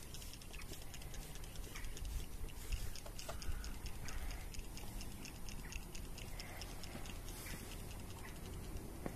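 Aerosol can of Würth engine cleaner being shaken, its mixing ball rattling in a steady rhythm of about five clicks a second.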